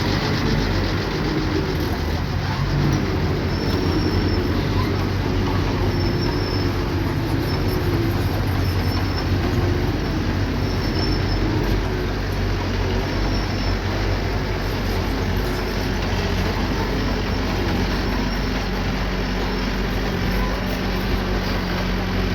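Small bulldozer's diesel engine running steadily, with a faint high squeal that comes and goes every second or so.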